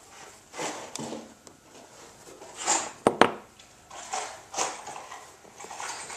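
Hand handling of a CNG mixer fitting and the plastic air intake tube: a series of short scrapes and rustles, with two sharp clicks a little over three seconds in.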